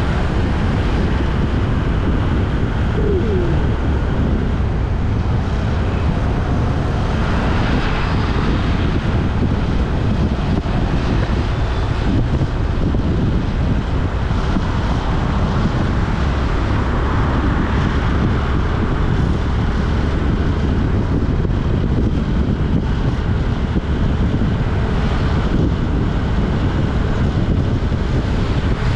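Steady wind rush on the microphone over road noise from a moving vehicle, heaviest in the low rumble.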